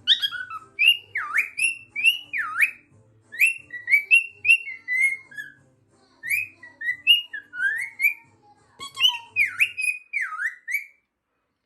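Cockatiel whistling a learned tune: a run of clear whistled notes, several swooping down and back up, in phrases with a short pause midway.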